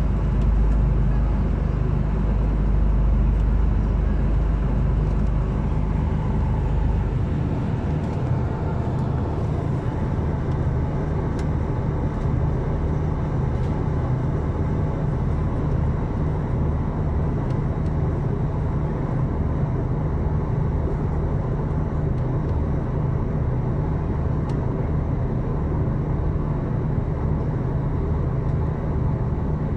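Steady low rumble and hum of a V/Line diesel passenger train running, heard from inside the carriage as it pulls through a station. The deepest rumble is heaviest for the first several seconds and then eases, with a few faint clicks over the steady drone.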